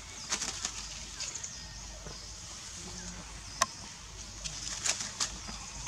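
Scattered crackles and snaps of dry leaves and twigs as monkeys move about in the undergrowth. The loudest is a single sharp snap about three and a half seconds in. Under them runs a steady high hiss.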